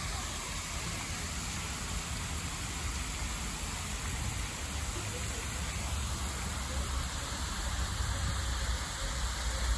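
Spherical dandelion-style fountain spraying, its many thin jets splashing steadily into the basin, with a low rumble underneath that grows a little stronger near the end.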